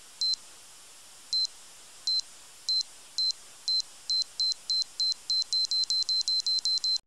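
Countdown beeping of a cartoon time-bomb sound effect. About twenty short high-pitched electronic beeps start about a second apart and speed up steadily until they come several times a second, then cut off suddenly, the sign that the dynamite is about to blow.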